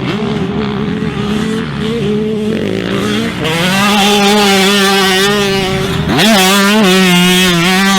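Two-stroke motocross bike engines running at high revs, the pitch wavering with the throttle, with a sharp rev rising quickly about six seconds in.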